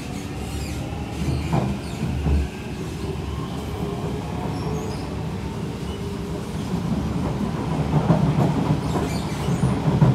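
Kawasaki C151 metro train with permanent-magnet synchronous traction motors, heard from inside the car while running: wheels rumbling on the rails under a faint motor whine, with a couple of thumps in the first few seconds. The running noise grows louder over the second half as the train gathers speed.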